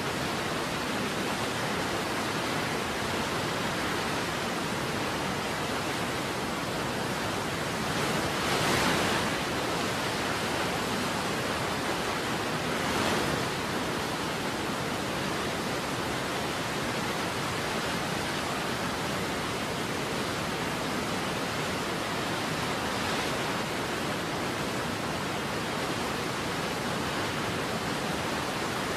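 Steady rushing of a waterfall, an even hiss of falling water across all pitches, swelling briefly about nine seconds in and again about thirteen seconds in.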